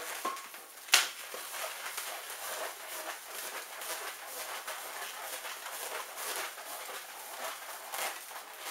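Latex modelling balloon squeaking and rubbing as it is twisted into a spiral in the hands, with a sharp click about a second in.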